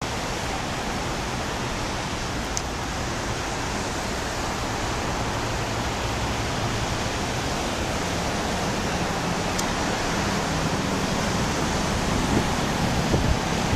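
Airbus A319-112's CFM56 turbofan engines on landing approach: a steady, distant jet roar that grows slowly louder, with a faint low hum coming in about two-thirds of the way through.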